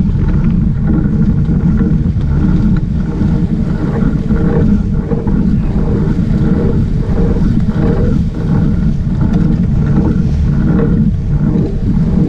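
Sportfishing boat's engines running with a steady low rumble, mixed with wind on the microphone and water splashing alongside the hull.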